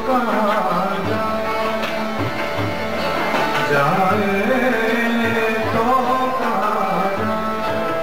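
Indian music: a voice singing a gliding melody with tabla accompaniment and held instrument notes underneath.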